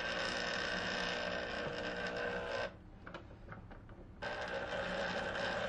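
達新牌 (Dashin) electric citrus juicer's motor spinning the reamer under a pressed green citrus half, a steady hum. It stops for about a second and a half near the middle and starts again. The motor has been run a long while, and the owner suspects it is getting too hot.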